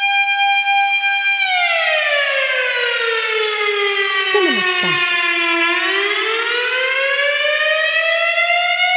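Tornado warning siren wailing: it holds a steady high pitch, then slowly falls to a much lower pitch over about four seconds and climbs back up to the high pitch near the end.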